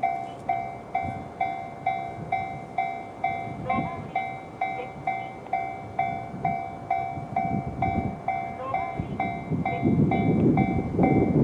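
Japanese railway level-crossing electronic warning bell (JR standard tone) ringing in an even repeating ding, a little over two strikes a second. Near the end the rumble of a JR 211-series electric train rises under the bell as the train comes through the crossing.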